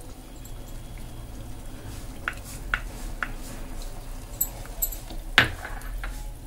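Saffron milk poured from a small glass bowl into a pan of roasted moong dal, then a wooden spatula stirring the wet mixture, with a few light clicks and one sharper knock against the pan about five seconds in, over a low steady hum.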